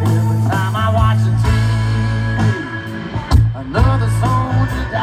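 Live band playing a slow blues-country song through the PA, heard from within the crowd: electric guitar over a steady bass, with a few drum hits.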